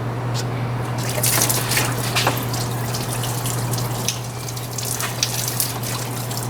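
Engine coolant draining from the disconnected lower hose and thermostat housing, a steady trickle with scattered drips, over a steady low hum.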